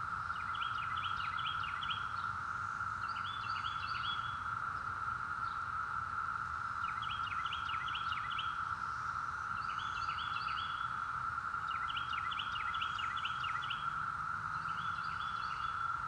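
Cicadas holding one steady, unbroken drone, the loudest sound, with a northern mockingbird singing short, chirpy phrases over it, about six phrases a couple of seconds apart.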